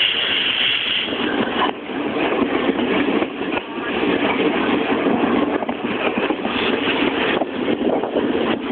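Double-headed steam train pulling out and running, a loud steady rumbling noise of the train under way. A high hiss at the start stops about two seconds in.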